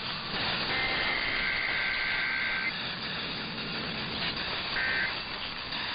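Emergency Alert System SAME digital data bursts, the harsh two-tone modem screech that encodes an alert's header or end-of-message code, played over steady radio static. One burst lasts about two seconds early on, and a short one comes near the end.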